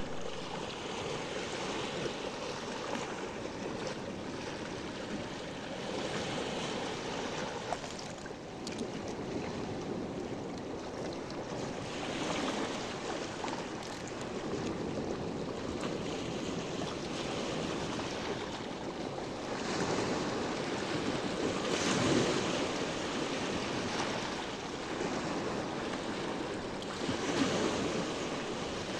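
Sea waves washing onto the shore: a continuous surf wash that swells and falls back every few seconds, with the biggest wave a little past two-thirds of the way through.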